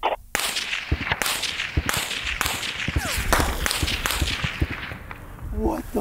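M1 Garand rounds fired from about 500 m passing close by: a rapid string of about ten sharp supersonic cracks, roughly two a second, each followed by a ringing echo. The cracks die away in the last second and a half.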